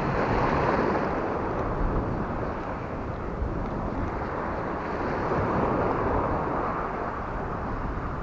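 Steady outdoor rush of wind on the microphone and shallow sea water, with no distinct clicks or rhythm.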